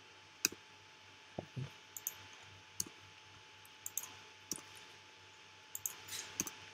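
About ten separate, irregular clicks from clicking at a computer, over a faint steady low hum.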